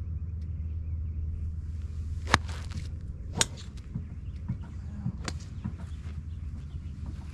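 Golf iron striking a ball off a driving-range mat with a sharp crack about two seconds in, then another sharp crack about a second later and a fainter one after that. A steady low rumble runs underneath.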